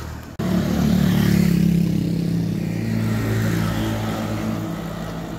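Road traffic passing close by: a motor vehicle's engine hum, loudest about a second in and slowly fading as it goes away.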